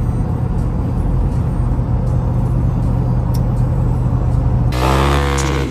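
Steady engine and road drone heard from inside the cab of a moving vehicle. Loud music cuts in about four and a half seconds in.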